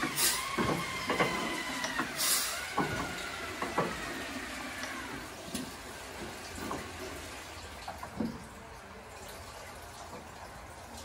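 Blackstone hit-and-miss oil engine running down after being shut off: knocks and clicks from the engine come further and further apart and fade as the flywheels coast to a stop. Over the first few seconds a whine falls in pitch.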